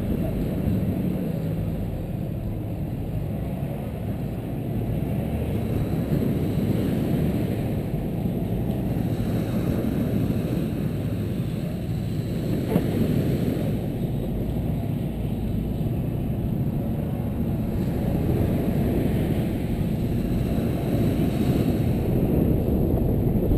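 2013 Jeep Wrangler JK driving on soft beach sand, its engine and tyres running steadily under heavy wind rumble on a microphone mounted outside the open cab. One brief knock about halfway through.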